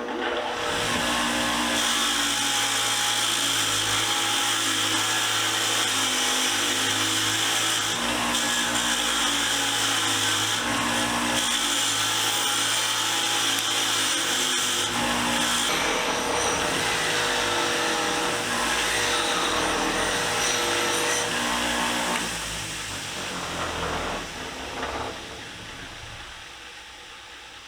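Motor-driven wire wheel running while rusty Channellock pliers are pressed against it to scour off rust. About 22 seconds in the motor is switched off and the wheel winds down.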